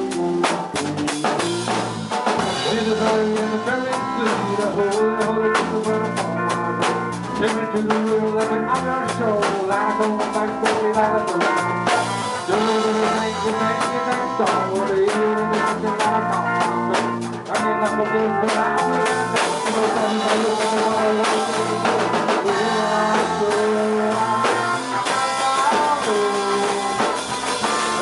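Rock band playing live with drum kit, electric bass and electric guitar, under a harmonica blown into a vocal microphone. The harmonica carries a lead line of long, bending notes over busy drums and cymbals.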